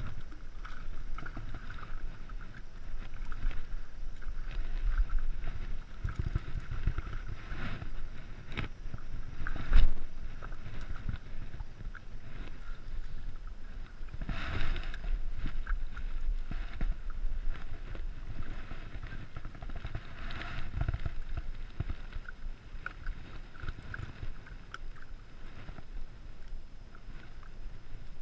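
Water lapping and splashing against a rocky shoreline close to the microphone, with wind rumble on the microphone. There is a sharp knock about ten seconds in and louder splashy swells around the middle.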